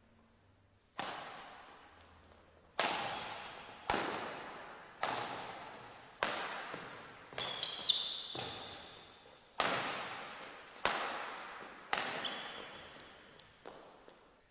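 Badminton rally: rackets strike the shuttlecock about once a second, about a dozen sharp hits, each echoing in the large hall. Short high shoe squeaks on the court floor come between some hits.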